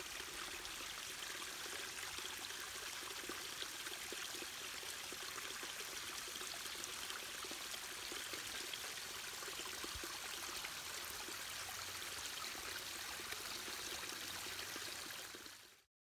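Steady watery hiss of wet snow and sleet falling on rock, with faint fine pattering and a trickling quality; it cuts off suddenly near the end.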